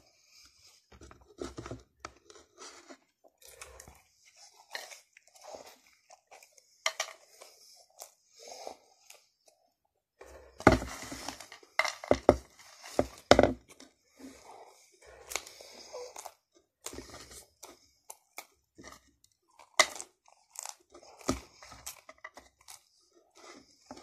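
A person chewing mouthfuls of french fries close to the microphone: irregular wet crunches, smacks and mouth noises, with a louder run of chewing around the middle.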